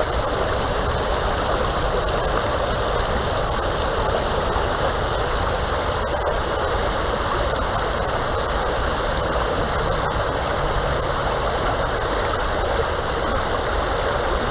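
River water rushing steadily, a constant even rush with a low rumble underneath.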